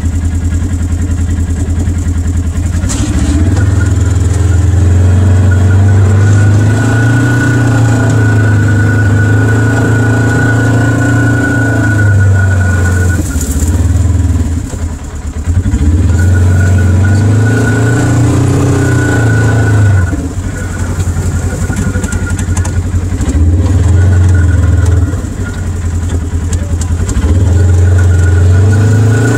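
Polaris RZR side-by-side's engine, heard from the open cab while driving, revving up and easing off several times as the throttle is worked. A steady high whine rides over it.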